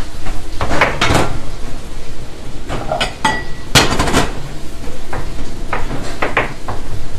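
Ceramic plates and kitchenware clattering on a stainless-steel counter: a series of irregular knocks and clanks, with one short ringing clink a little after three seconds in.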